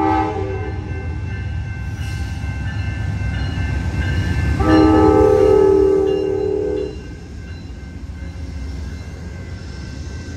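Amtrak GE P42DC diesel locomotives hauling a passenger train past at a street crossing, sounding the air horn: a short blast at the start and a longer, louder blast of about two seconds beginning about four and a half seconds in. Underneath runs the steady low rumble of the diesel engines and the passing cars.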